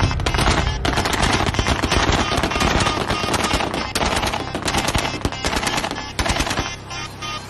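Long bursts of automatic rifle fire shot into the air as a celebratory welcome, many rounds a second, thinning out near the end.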